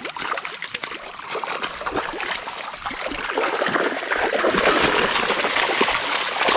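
Water trickling and splashing out of a mesh keep net as it is hauled up out of the river, growing louder a few seconds in.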